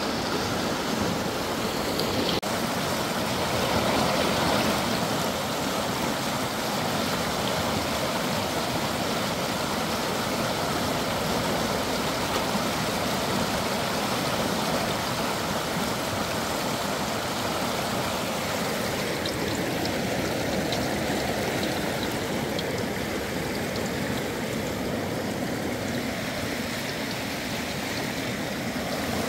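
Shallow river running steadily, a constant rush of flowing water.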